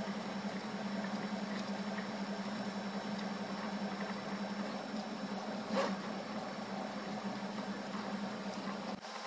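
DIY Prusa i3 3D printer running a print at 85 mm/s: its stepper motors and hotend cooling fan make a steady hum over an even whir as the axes move. A short sharp chirp comes about six seconds in.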